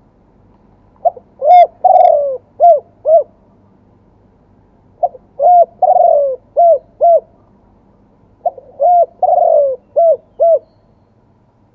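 Spotted dove cooing: three phrases of about five notes each, spaced a few seconds apart, each with a longer note in the middle that falls in pitch.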